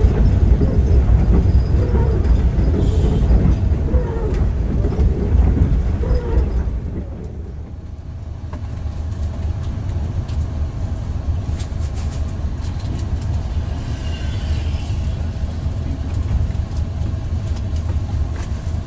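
Inside a coach: the diesel engine and road noise run as a loud, low rumble while the bus is under way. About seven seconds in, this drops to a quieter steady hum as the bus stands still to take on passengers, with a few light clicks.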